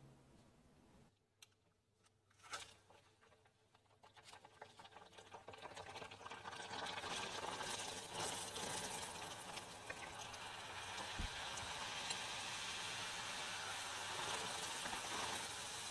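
Choux-pastry zeppole deep-frying in hot oil with a steady sizzle. After a quiet start with a couple of light clicks, the sizzle builds from about four seconds in.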